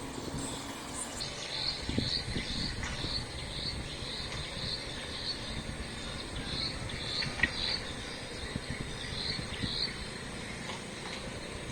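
Crickets chirping in short high chirps, about two a second with a few pauses, over a steady low outdoor rumble.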